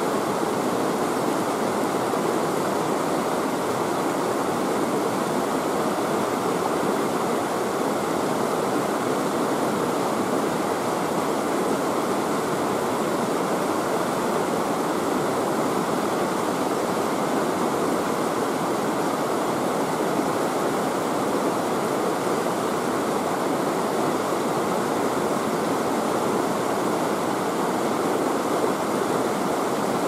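Mountain river rushing over rocks and shallow rapids, a steady, even sound of running water.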